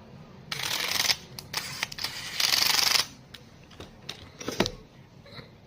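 Laptop parts being handled: two scraping slides of about half a second each, with scattered light clicks between them and a sharper click near the end.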